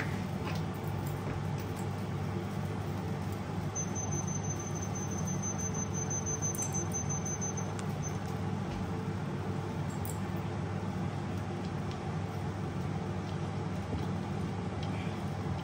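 Steady hum of a household appliance running, with a thin high whine for a few seconds near the start of the sound.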